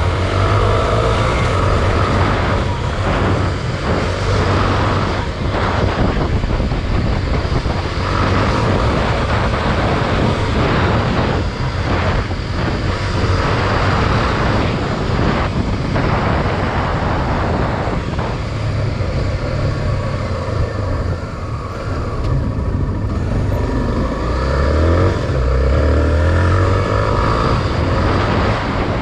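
Honda XR 250 Tornado's single-cylinder four-stroke engine running while the bike is ridden. The engine eases off for a few seconds about two-thirds of the way through, then pulls again.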